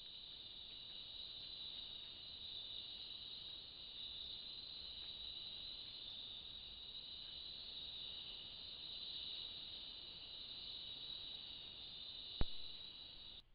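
Insect chorus, a steady high-pitched chirring of many insects at night, with one sharp click a little before the end.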